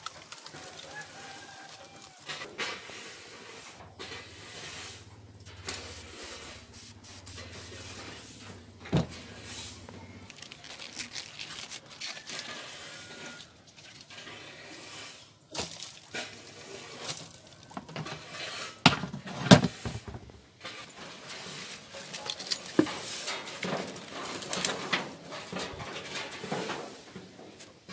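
Handling noise: scattered knocks, clicks and rustles of plastic tubs and a plastic bowl being moved about and lettuce leaves being laid in, the loudest knocks about twenty seconds in. A faint low hum runs for a few seconds near the start.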